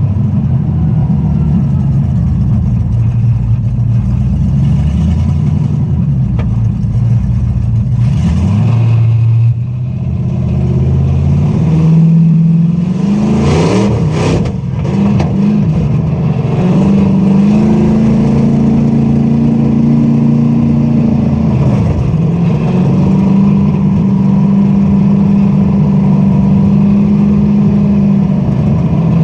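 Chevy 5.3 L LM7 V8 swapped into a Dodge Dakota, heard from inside the cab while driving. Its note climbs as it accelerates through the middle, drops away, then settles to a steady cruise with a brief dip partway through.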